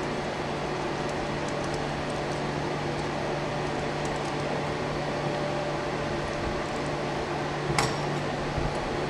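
Steady hum and hiss of background noise, like a fan or air conditioner, with a sharp click near the end and a lighter click just after as the pin-tumbler lock is handled while being taken apart.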